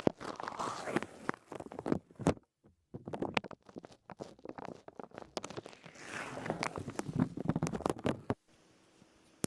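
Masking tape handled close to the microphone: irregular sticky crackling and peeling with many small clicks. It stops abruptly about eight seconds in, leaving a couple of faint ticks.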